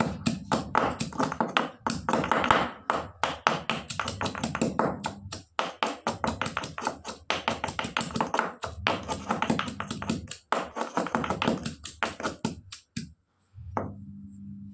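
Stone pestle pounding garlic in a stone mortar: rapid, steady strikes, several a second, crushing the cloves to a paste. The pounding stops near the end.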